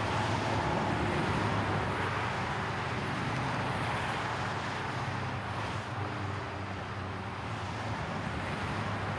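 Steady background rumble and hiss with a low hum underneath, easing off slightly in loudness and cutting off abruptly at the end.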